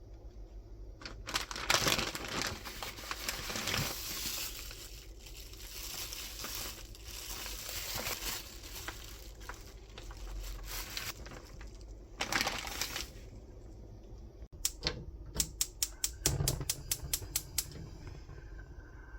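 Handling noises: irregular rustling and crinkling, like plastic or paper packaging being handled, then a quick run of about a dozen sharp taps, roughly five a second, near the end.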